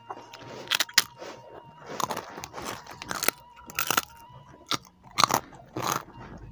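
Close-up eating sounds: a string of sharp, crunchy bites and chewing at irregular intervals as a person eats crisp food by hand.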